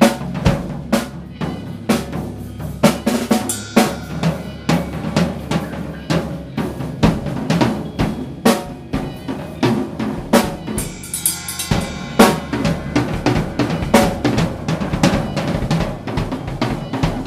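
Metal band playing: a drum kit beats out a steady rhythm of kick, snare and hi-hat hits over sustained bass and guitar. About ten seconds in, the low end drops away briefly under ringing cymbals, then the band comes back in on a hard hit.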